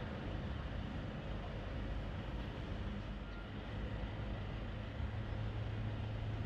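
Steady low rumble of street background noise, like nearby traffic, with a low hum that grows stronger about five seconds in.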